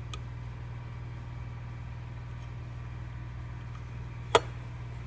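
Insects chirping in high, even pulses about once a second over a steady low hum, with one sharp click about four seconds in as a screwdriver is pressed against a metal coolant pipe flange to seat its seal.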